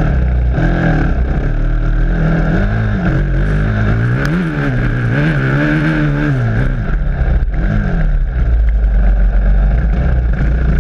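Honda single-cylinder four-stroke dirt bike engine running under load, its pitch rising and falling again and again as the throttle is opened and closed.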